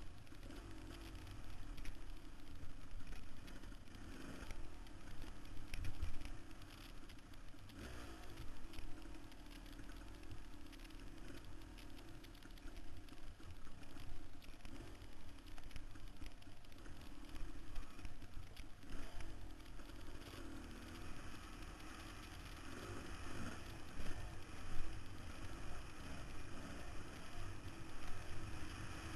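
Dirt bike engine running under changing throttle, its pitch rising and falling, as the bike is raced over a rough, rocky dirt trail. Wind on the microphone and occasional knocks from the bike hitting bumps.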